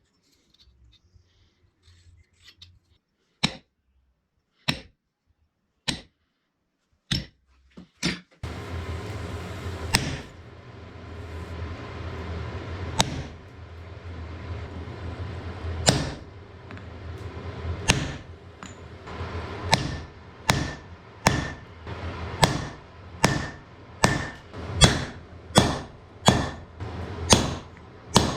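Hammer blows on iron at the anvil: a few spaced strikes, then, after a steady rushing noise comes on about eight seconds in, an even run of ringing blows at about one and a half a second.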